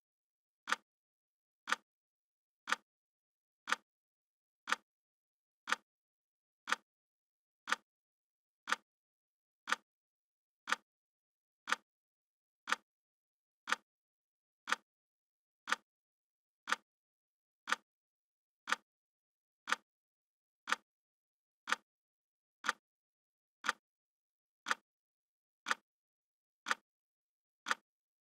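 Clock ticking sound effect: one sharp tick every second, steady and even.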